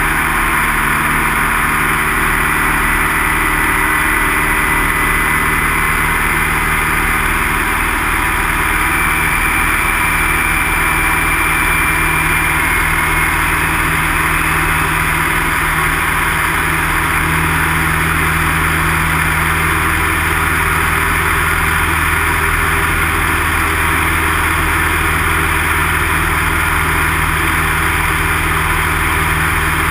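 Piston engine and propeller of a light single-engine aircraft running steadily in flight, heard from inside the cockpit.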